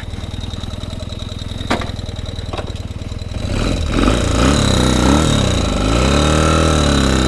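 1976 Kawasaki KZ400 parallel-twin engine idling, with two clicks, then pulling away. Its pitch rises and falls a few times as it labours before it levels off, which the rider puts down to having set off in second gear.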